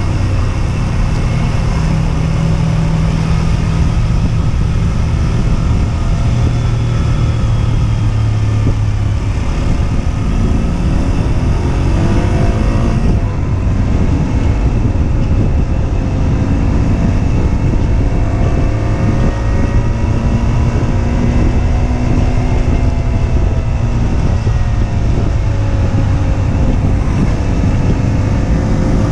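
Husqvarna Svartpilen 125's single-cylinder four-stroke engine running under way, its pitch rising and falling as the revs change through the ride.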